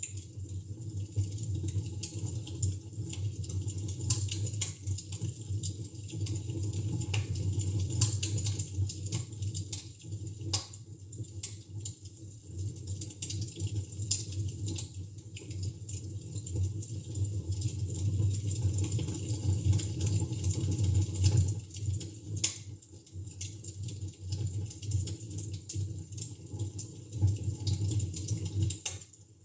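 Wood fire in a fireplace crackling, with frequent irregular sharp pops over a steady low rumble.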